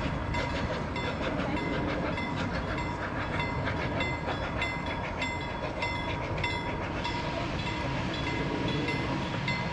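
Wooden carriages of a narrow-gauge steam train rolling away along the track. Wheels click over the rail joints in a quick, even rhythm, each click carrying a short, high metallic squeal, over a steady rumble.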